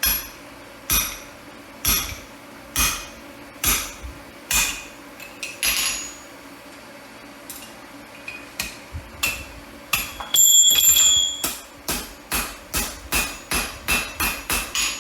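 Hand hammer striking a drift through a hot punched hole in steel on the anvil: blows about once a second, a pause of a couple of seconds, then quicker blows. A sustained metallic ring sounds about ten seconds in.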